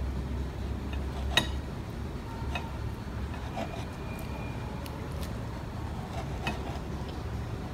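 Knife cutting through a sandwich on a plate, with a few sharp clicks of the blade against the plate, the loudest about a second and a half in, over a steady low hum.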